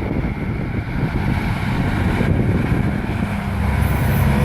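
Roadside traffic noise with wind on the microphone: vehicles rumbling past, and about three and a half seconds in a steady low engine drone from a heavy vehicle comes in. No horn sounds.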